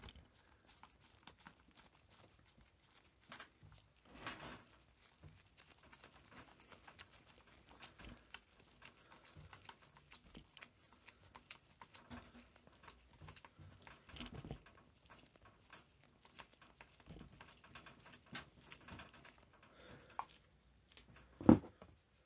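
A screwdriver tightening a screw in the plastic throttle-handle clamp of a petrol strimmer: faint scattered clicks and scraping of the tool and plastic, with one louder knock near the end.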